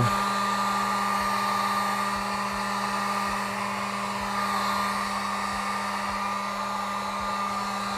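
Electric heat gun running steadily, blowing hot air to shrink heat-shrink tubing over a battery pack: a constant rush of air with a steady hum.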